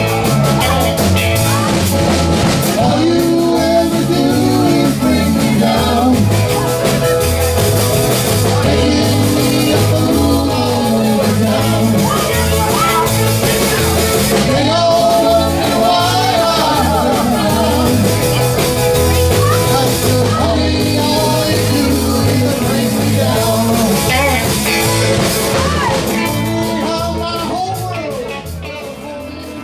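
Live rock band playing: electric guitars, electric bass and drum kit keeping a steady beat, with singing. The music gets somewhat quieter near the end.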